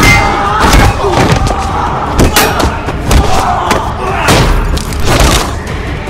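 Re-dubbed film fight sound effects: a quick, uneven run of punch and body-impact hits, with grunts and shouts from the fighters mixed in.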